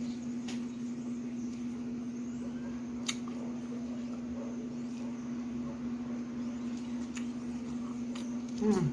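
A steady low hum from a fan or motor, with a few faint clicks. Near the end comes a short, louder sound that falls in pitch.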